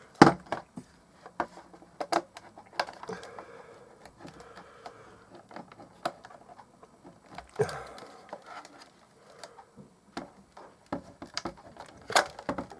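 Irregular clicks, taps and knocks of hands and a screwdriver working on the plastic case of a clock radio while it is being unscrewed and pried apart. Sharper knocks come near the start, in the middle and near the end.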